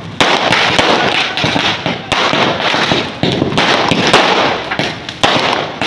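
Aerial fireworks bursting in the night sky: three sharp bangs, each followed by a dense crackling of the burst's sparks.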